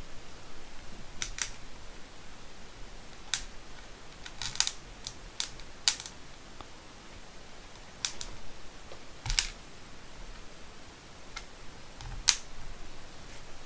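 About a dozen light, sharp clicks and taps, spaced irregularly: small plastic RC car parts and M3×10 screws being handled and fitted by hand during assembly.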